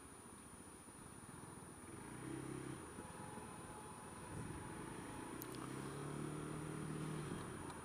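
Honda Dio scooter's engine running steadily underway in traffic, under a low rumble of wind buffeting the helmet camera's microphone. A faint constant high whine sits over it.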